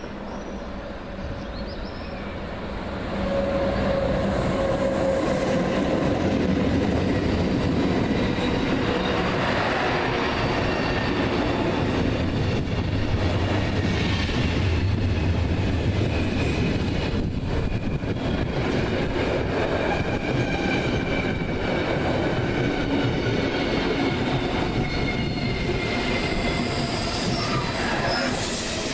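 A train passing at close range, growing loud about three seconds in and staying loud, with a high squeal from the wheels on the rails.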